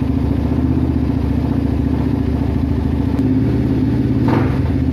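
Kawasaki KLX motorcycle fitted with a Honda Tiger (GL200) 200 cc single-cylinder four-stroke engine, idling steadily.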